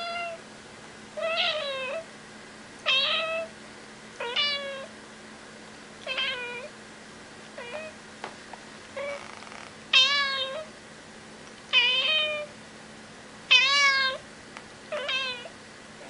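Domestic cat meowing repeatedly, about ten short meows roughly one every second and a half, each falling in pitch at its end; a few in the middle are louder.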